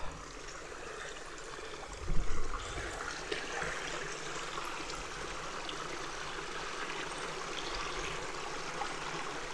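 A dog swimming through creek water, a steady sloshing and splashing of water around it. A louder thump about two seconds in.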